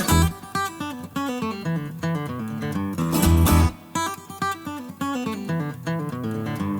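Background music: acoustic guitar picking a melody, with a bass line that drops out for much of the stretch.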